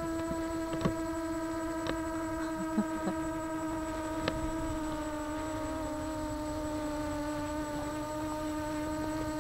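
Walkera Runner 250 racing quadcopter's motors and propellers humming at a nearly steady pitch in flight, with a few faint ticks.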